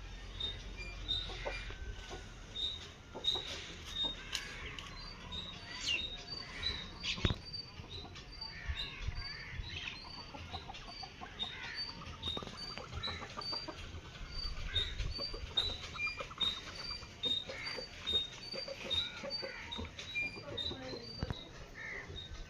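Chickens clucking and calling, over a steady run of short high chirps at about two a second.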